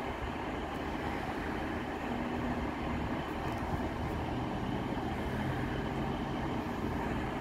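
Class 150 Sprinter diesel multiple unit with its underfloor diesel engines running, a steady engine hum and rumble. A low engine tone grows a little stronger about two seconds in.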